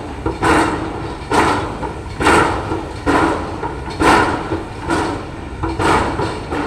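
Heavy construction machinery working a bridge pile: regular clanking metal impacts, about one a second, each ringing briefly over a steady low rumble.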